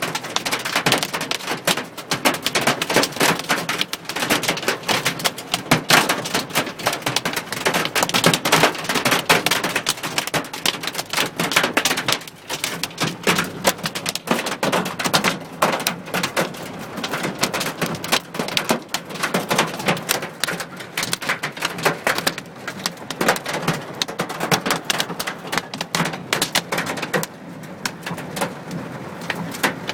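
Hail and rain drumming on a car's roof and windows, heard from inside the car: a dense, continuous clatter of hard little impacts that thins a little near the end.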